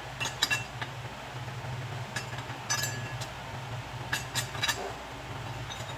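Steel clamp and vise parts clinking and knocking against the cast-iron drill press table as they are positioned and adjusted by hand, in scattered light strikes over a steady low hum.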